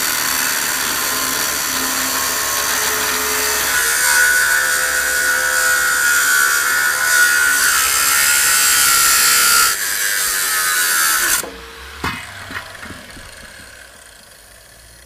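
Angle grinder with a cut-off disc slicing through the steel wall of a large metal drum: a loud, harsh grinding with a steady whine. About eleven seconds in the cutting stops and the disc's whine falls away as it spins down, followed by a single thump.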